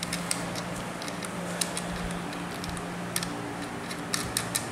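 Scattered light clicks and taps of a pole saw's plastic sprocket cover and chain being handled as the cover is pressed onto the bar, a few close together near the end, over a steady low hum.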